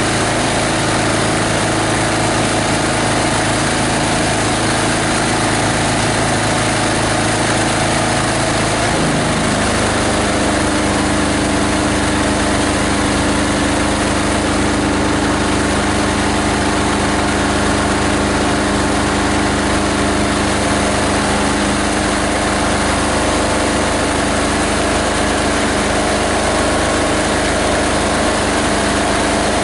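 18 HP single diesel engine driving a plastic grinder, running steadily; about nine seconds in its engine note drops to a lower speed and holds there.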